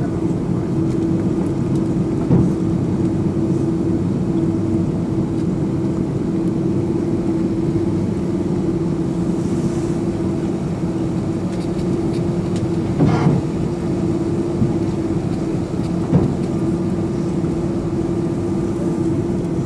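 Steady drone of an Airbus A330-200 taxiing on idling engines, heard inside the cabin, with a constant hum tone over a low rumble. A few light thumps break in, the clearest about thirteen seconds in.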